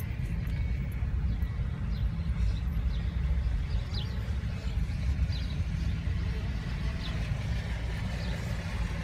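Steady low rumble of a car driving slowly through shallow floodwater, heard from inside the cabin, with a few faint high chirps.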